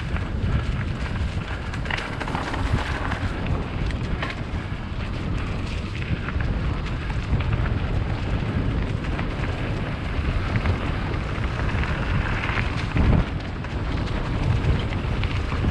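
Wind buffeting the microphone of a mountain bike's camera, over tyre noise on a dirt trail and frequent small rattles and clicks from the bike on rough ground.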